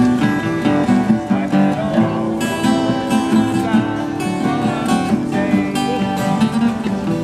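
Acoustic guitar strummed in a steady rhythm, playing a soft-rock song.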